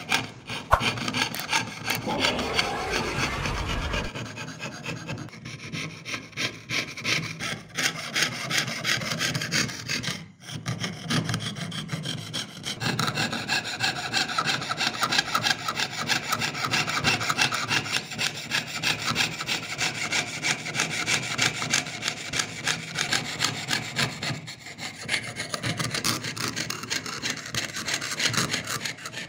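Jeweler's saw cutting through thin engraved metal sheet, a rapid, steady rasping of fine back-and-forth strokes as the blade pierces out the background of the design, with a brief pause about ten seconds in.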